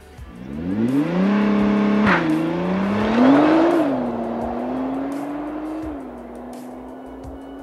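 2017 Nissan GT-R's twin-turbo V6 revs up and is held at a steady pitch with the brakes on, then a sharp crack about two seconds in as the car launches hard. It accelerates away through two upshifts, each a quick drop in pitch, growing fainter as it pulls away.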